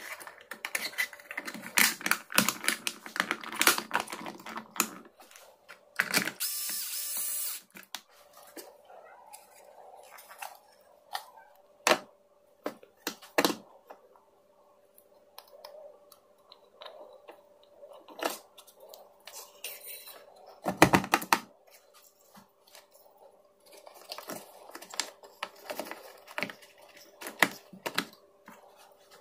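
Small parts and tools being handled: irregular clicks, taps and rattles, a short steady rasp about six seconds in and a heavy thump about twenty-one seconds in, over a faint steady hum.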